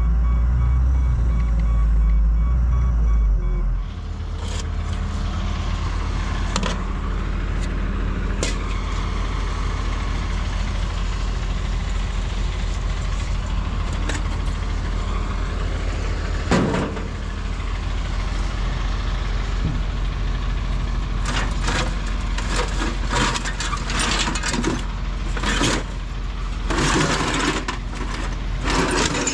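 Heavy equipment engine running with a backup alarm beeping steadily, cut off about four seconds in. Then rusty scrap metal clanks and clinks as pieces are pulled from a junk pile by hand, a few knocks at first and a rapid run of clanks in the last several seconds, over a steady low hum.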